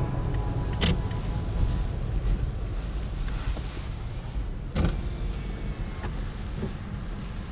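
Steady low engine and road rumble inside a slowly moving car or truck cab, with two sharp knocks, about a second in and about five seconds in, and a couple of fainter ones after.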